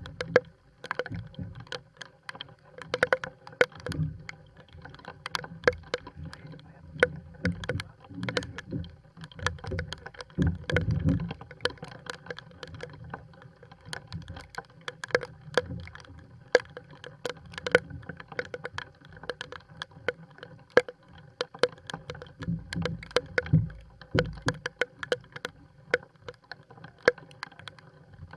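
Small fishing boat rocking on choppy water: frequent, irregular sharp taps and clicks over low thuds of water against the hull.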